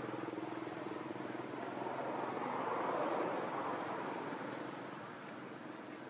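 A motor vehicle's engine humming, swelling to its loudest about three seconds in and then fading away as it passes.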